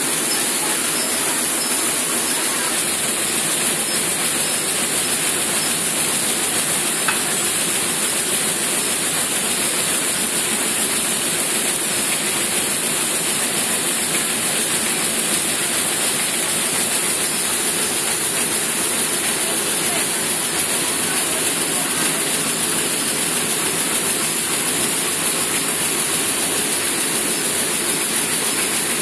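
Seed processing machinery running steadily with a continuous loud hiss, as seed grain pours off a metal chute into a hopper fed by electric-motor-driven equipment.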